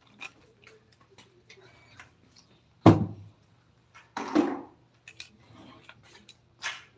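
Scattered light taps and clicks, with two louder knocks about three and four seconds in, over a steady low hum.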